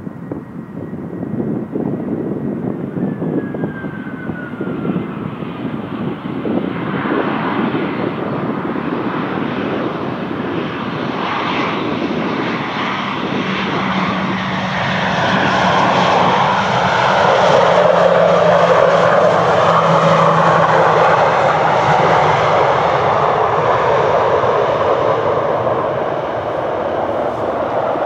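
Aircraft engine noise that grows steadily louder, loudest about two-thirds of the way through.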